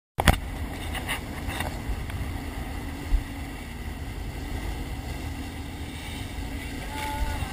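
Sportfishing boat's engine running steadily at trolling speed, with the wake rushing past and wind buffeting the action camera's microphone. A few sharp knocks sound in the first two seconds, and a louder thump about three seconds in.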